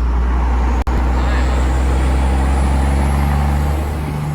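12-valve Cummins 5.9 L inline-six diesel pickup engine running loud and steady under way, with a deep drone; the sound breaks for an instant about a second in.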